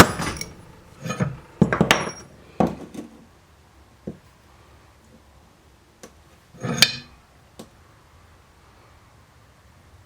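Metal tools and parts clanking and tapping against a metal vice and bench: about eight irregular sharp knocks and clatters, a few with brief ringing, the loudest at the start and about seven seconds in.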